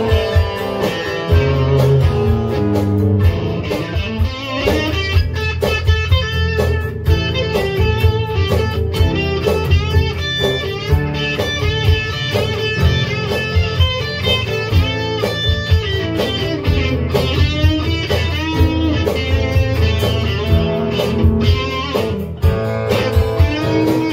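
A small rock band playing live: an electric guitar leads with bending, wavering notes over a steady drum beat, a second guitar and keyboard. The song is instrumental throughout, with no singing.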